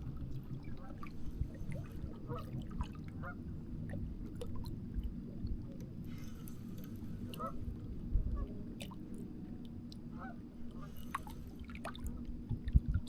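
Faint, scattered short bird calls over a low steady rumble.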